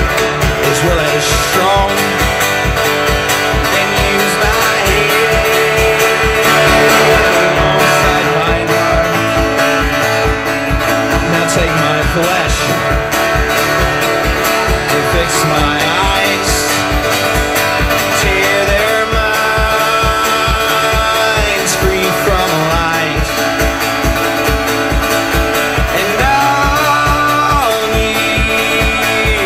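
Acoustic guitar strummed in a steady rhythm, with a man's singing voice over it in places, amplified through a PA.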